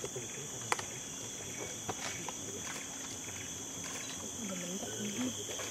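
Rainforest ambience: a steady high insect drone, with scattered clicks and snaps from orangutans handling and eating food on the feeding platform, and a brief voice-like call near the end.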